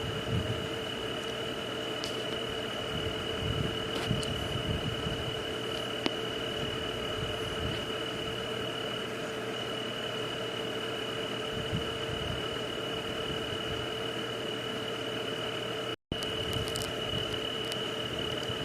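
Night nature ambience: a steady high-pitched insect trill and a lower steady drone over an even hiss, with a few soft low thumps. The sound drops out completely for an instant about sixteen seconds in.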